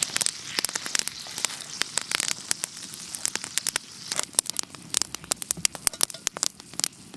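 Dense, irregular crackling and popping over a steady hiss: sausage and eggs frying in a cast-iron skillet over campfire coals, with a wood campfire crackling close by.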